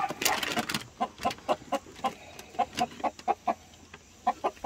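Lavender Araucana chickens clucking: a run of short, quick clucks, several a second, pausing briefly near the end before a few more. A short rustling noise comes just at the start.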